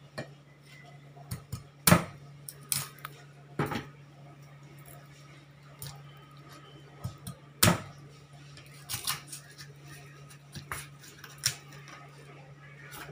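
Kitchen knife knocking and scraping on a thick wooden chopping board as small fish are cleaned, a series of sharp irregular knocks with the loudest about two seconds and eight seconds in.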